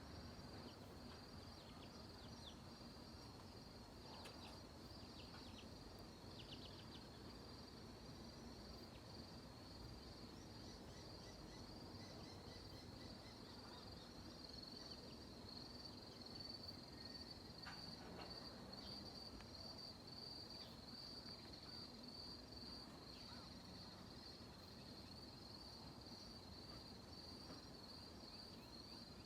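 Faint, steady trilling of insects, a high pulsing buzz that grows a little stronger partway through. A few faint short chirps come around five seconds in.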